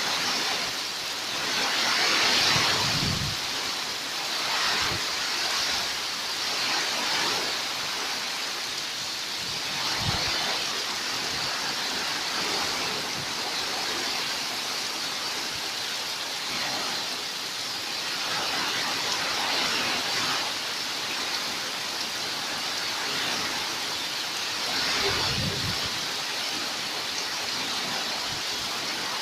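Heavy storm rain pouring down, a steady hiss that swells and eases in gusts, with a few brief low rumbles.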